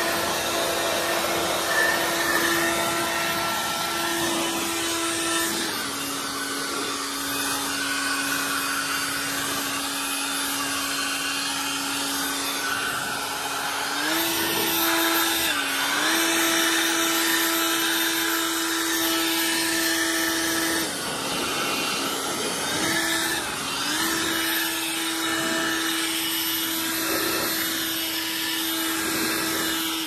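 EGO cordless leaf blower with a Stubby Nozzle Co drying nozzle running continuously, a steady motor whine over rushing air as it blows water off a car's wet panels. The whine drops in pitch about six seconds in, rises again around fourteen seconds, dips briefly, then drops around twenty-one seconds and rises again around twenty-four as the blower speed is eased back and forth.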